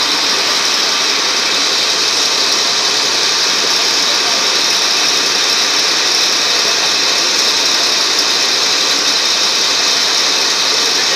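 Steady din of a passenger ferry's engine while under way, heard from the open-sided passenger deck, with a strong even hiss over it and no change in level.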